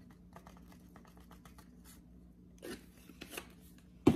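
Faint quick clicks and light rustling as seasoning is shaken into a bag of chicken drumsticks, with a brief rustle and a sharp knock near the end.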